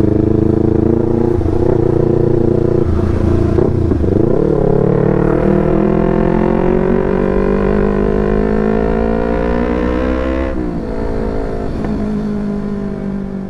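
Yamaha R25's parallel-twin engine running through a Proliner TR1R short aftermarket exhaust, its note climbing steadily in pitch for several seconds as it revs up. About ten and a half seconds in the pitch drops sharply, and the note runs lower and trails off near the end.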